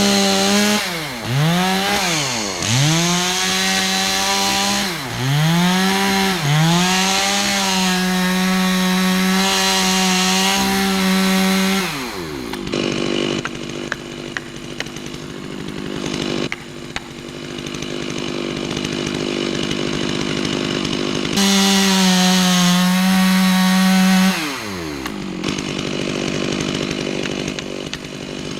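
Chainsaw making a felling cut at full throttle. The revs dip briefly under load several times early on, then drop to idle about halfway through. The saw revs up again for a few seconds and falls back to idle.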